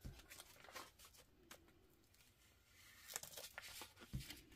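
Faint scraping and rustling of a hand-held wedge applicator dragging paint across paper, with a soft knock at the start and another about four seconds in.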